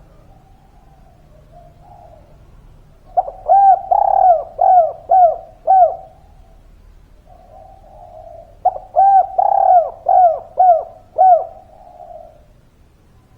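Spotted dove cooing twice. Each phrase is a run of about six short, arched coos, with a soft low murmur between the phrases.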